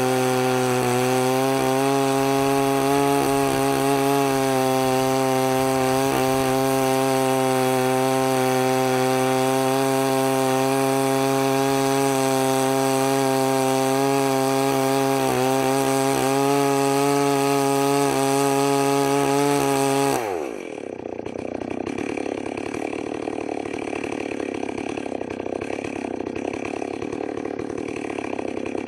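Two-stroke chainsaw with an extra-long bar ripping lengthwise through a eucalyptus hardwood billet on a guide rail, held at full throttle at a steady pitch; its chain's teeth are filed down to their minimum. About twenty seconds in, the throttle is let off: the revs fall away sharply and the saw runs on at idle, quieter and rougher.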